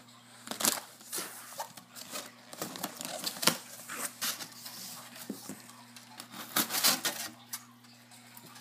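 Scissors cutting the packing tape on a cardboard shipping box and the flaps being pulled open: a run of snips, scrapes and cardboard rustles, with the loudest ones about halfway through and again past two-thirds of the way in.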